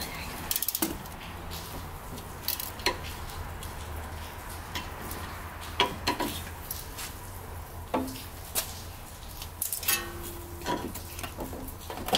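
Ratcheting wrench clicking in a quick run as it turns the sway bar end link nut on a front strut, then scattered metal clinks and taps as the loosened end link is worked free of the strut, one briefly ringing about ten seconds in.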